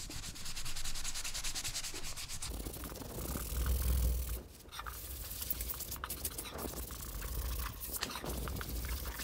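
Cloth rag rubbed briskly back and forth over the charred, blowtorch-scorched surface of a wooden bowl, scrubbing off the loose surface carbon. The strokes are quick and fast-paced, with a brief let-up about four and a half seconds in.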